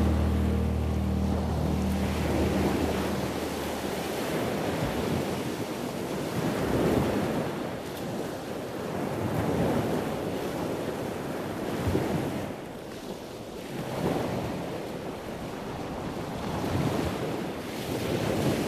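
Ocean waves washing ashore, the surf swelling and ebbing every three to four seconds.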